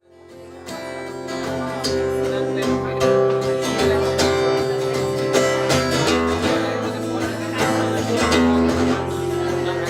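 Background music: a song's intro with strummed acoustic guitar over a bass line, fading in from silence over about the first second.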